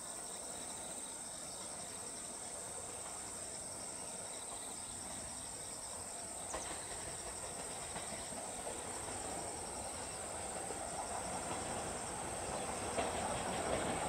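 Insects calling in a steady high buzz with a pulsing trill, while a freight train approaches in the last few seconds, its rumble growing louder.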